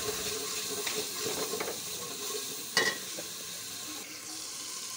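Onion-and-spice masala sizzling in hot oil in an aluminium pot while a metal spoon stirs it, with small scrapes and one sharp metallic clink of the spoon against the pot a little past halfway.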